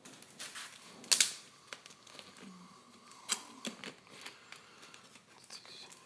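Handling noises close to the microphone: a scattering of sharp clicks and knocks, the loudest about a second in and another just past three seconds, with softer taps in between.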